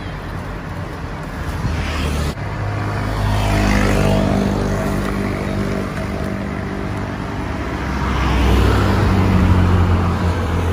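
Road traffic: motor vehicles passing close by on the road, their engine hum swelling about three seconds in and again near the end.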